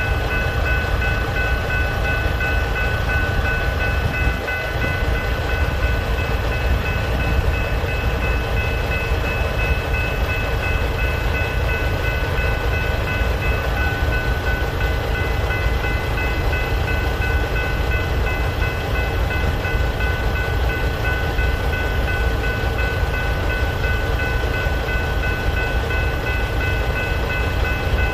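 Two General Signals type-3 electronic crossing bells ringing steadily, over the low, steady rolling noise of loaded covered hopper cars passing through the crossing.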